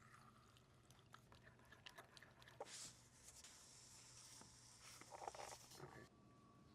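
Faint crackly crunching and scattered light clicks from a crisp tostada-filled crunch wrap, over a low steady hum.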